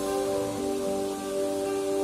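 Background music: soft held chords that change every half second or so, over a steady hiss.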